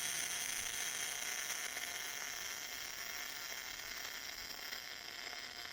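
MIG welder arc sizzling steadily as it lays welds on 3 mm steel plate.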